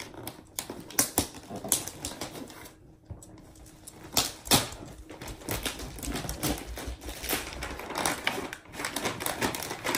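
Paper gift wrapping crinkling and tearing as a present is unwrapped by hand, in quick irregular crackles with a brief lull about three seconds in.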